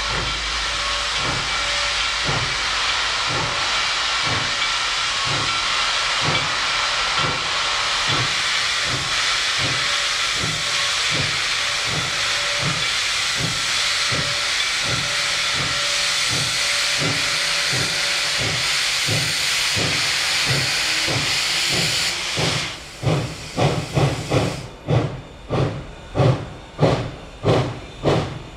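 Reading & Northern 425, a 4-6-2 Pacific steam locomotive, pulling away with its cylinder cocks open: a loud steady hiss of steam, with regular exhaust chuffs beneath it. About three quarters of the way through the hiss cuts off as the cocks close, leaving sharp, loud stack exhaust chuffs, about one and a half a second.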